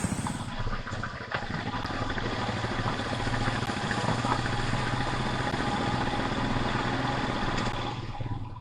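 Vehicle engine running steadily at low speed, dropping away about eight seconds in.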